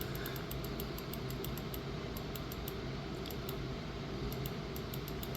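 Low steady background hum with faint, rapid, irregular clicking.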